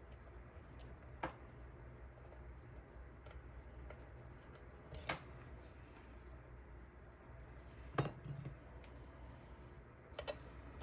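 Small metal lock-picking tools working in a dimple lock cylinder: faint scattered ticks and scrapes, with four sharper metallic clinks spread a few seconds apart.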